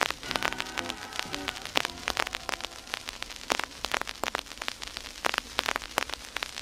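Vinyl LP surface noise: dense crackle and frequent sharp pops from the stylus tracking the groove. The last faint notes of music die away in the first second and a half, leaving only the crackle as the track ends.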